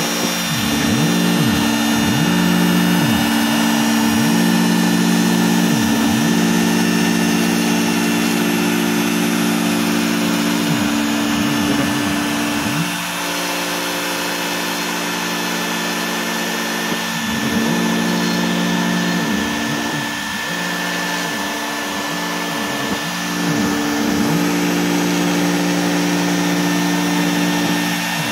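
Bosch Colt trim router running at a steady high speed as an OX CNC drives its 1/32-inch single-flute bit through foam board. Under the router's constant tone, the machine's stepper motors whine in short sweeps that rise and fall in pitch as the gantry speeds up, slows and changes direction.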